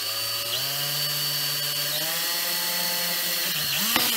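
DeWalt 18V cordless drill running steadily as it bores a small pilot hole through wrapped cotton cord into a wooden dowel handle. Its motor whine steps up slightly in pitch about half a second in and again around two seconds, then stops near the end.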